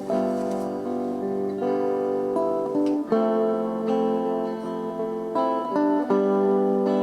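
Instrumental music without singing: held chords on a plucked string instrument, with new chords struck every few seconds.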